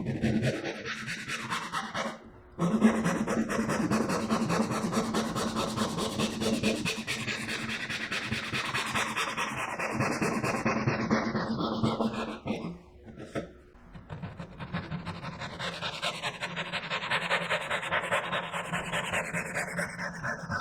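Hand saw cutting walnut, the pins of a miter dovetail joint, with quick steady strokes. There are three cuts, with short pauses about two seconds in and about thirteen seconds in, and the tone falls gradually as each cut goes deeper.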